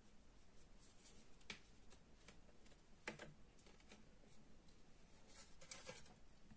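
Faint crinkling and light clicks of an aluminium foil baking cup being peeled off a baked cupcake: short crackles about a second and a half in, around three seconds in, and a cluster near the end.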